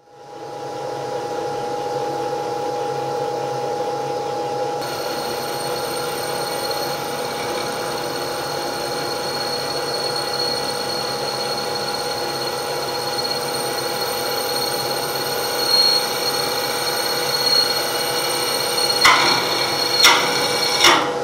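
Friction test rig turning a piston-ring friction pair with its oil supply cut off, running dry: a steady mechanical whine made of several fixed tones. Near the end come three short, sharp noises about a second apart.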